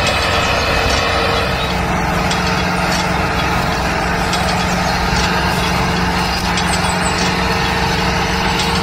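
An engine running steadily with an even hum, unchanging throughout, as the tractor pulls a cultivator through sand.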